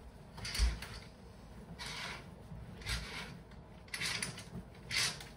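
Curtains being drawn along their ceiling rail, with several short sliding rasps of the runners.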